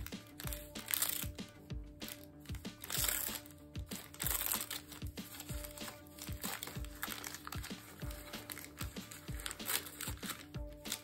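Paper wrapper crinkling and rustling in several bursts as it is unfolded from a wrapped Japanese sweet, over background music.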